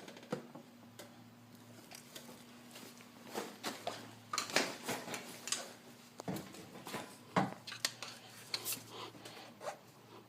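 Irregular clicks, taps and scrapes of metal and rubber parts being handled as a motorcycle carburetor bank is worked down into its rubber intake boots, busiest around the middle.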